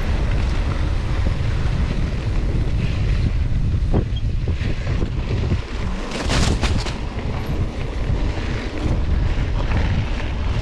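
Wind buffeting the microphone while riding a mountain bike, a steady low rumble, with a short burst of clicking and clatter about six seconds in.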